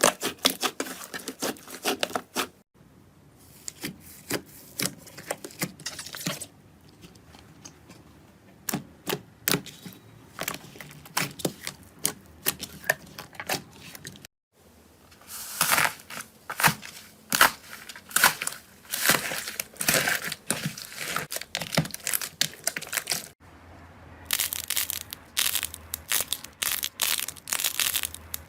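Slime being squeezed, poked and stretched by hand, giving a dense run of sticky clicks, pops and crackles. The sound breaks off briefly three times as one clip gives way to the next.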